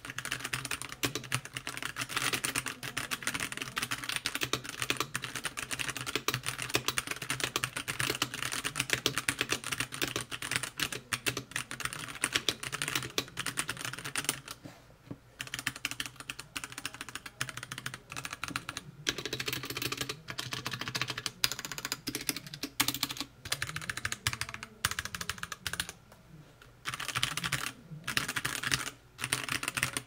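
Typing test on a Womier K98 mechanical keyboard with an all-acrylic case and stock Gateron Brown tactile switches: rapid continuous keystrokes, light-pitched and clacky for lack of sound-dampening material, with the stabilizers rattling. The typing breaks off briefly about halfway, then goes on in sparser bursts with short pauses.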